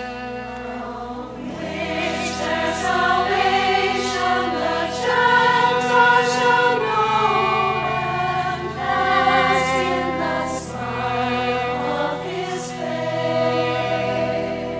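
Women's choir singing a slow hymn in phrases, over sustained organ notes and with a solo violin.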